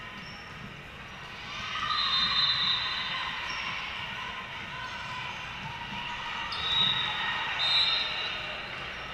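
Indoor volleyball rally in a large echoing gym: ball contacts, sneakers squeaking on the hardwood floor and players calling out, louder about two seconds in and again near the end.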